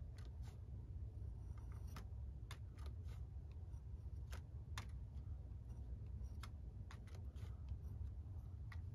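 Scattered light clicks of a paintbrush tapping and working in the wells of a plastic paint palette while picking up gouache, over a low steady hum.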